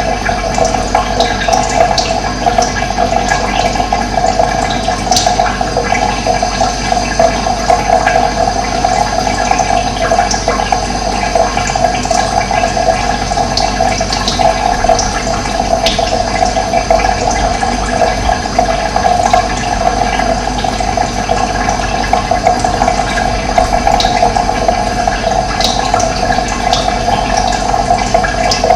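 Steady rush of flowing water, with brief high bird chirps now and then.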